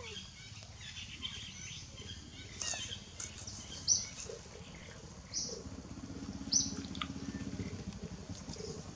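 Birds chirping, short high calls repeating about every second and a bit from about four seconds in, over a low, evenly pulsing engine hum that grows stronger in the second half.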